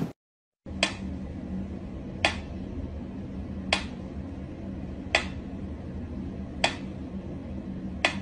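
Mechanical pendulum metronome ticking slowly and evenly, six ticks about a second and a half apart, over a low steady hum.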